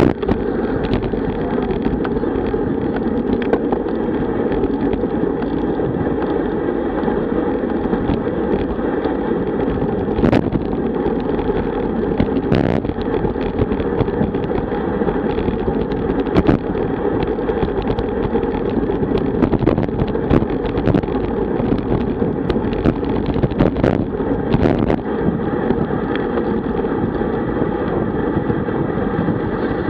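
Steady wind rumble on a road bike's action-camera microphone at about 40 km/h, mixed with tyre noise on asphalt, broken by occasional sharp clicks.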